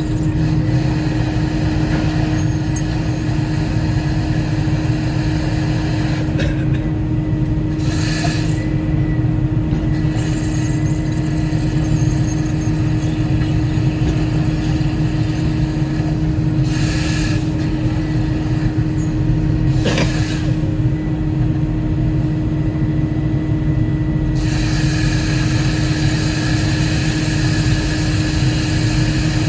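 Volvo 140E excavator's diesel engine running steadily under work, with short bursts of hissing now and then and a longer hiss near the end.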